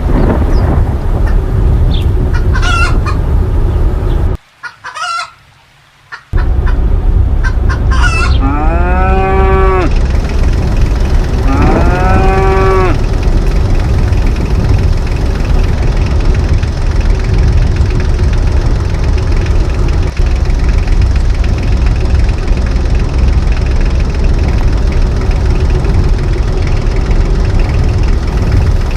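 Steady storm wind, with chickens clucking during the first few seconds. After a brief break comes a pair of long rising-and-falling farm-animal calls, like mooing.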